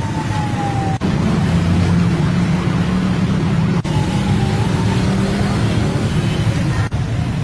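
Loud, steady street noise with a deep rumble and a siren wailing faintly, its pitch falling away in the first second and sounding again briefly in the middle. The sound drops out for an instant three times.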